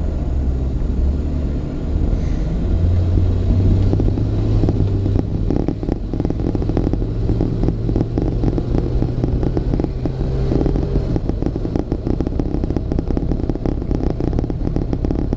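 A 2006 Toyota Tundra pickup heard from inside the cab as it pulls onto a highway and drives on: low engine hum that rises in pitch about three seconds in and then holds, over steady tyre and road noise, on a test drive after a new driveshaft and U-joints were fitted to cure a vibration.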